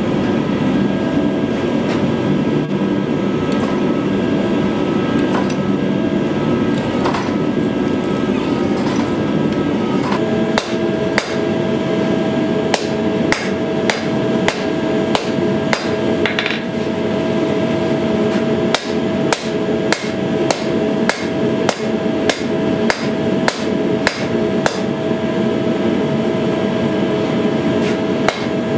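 Steady rush of a propane gas forge burner as the steel bar heats. About ten seconds in it gives way to hand-hammer blows on the red-hot sword blade on a steel anvil, about two a second with brief pauses.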